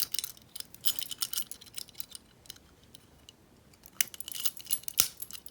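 Metal warded picks clicking and scraping as one is worked into a padlock's keyway and turned, with the other picks on the ring jangling. A flurry of small clicks comes at the start, then a quiet stretch, then a few sharper clicks near the end.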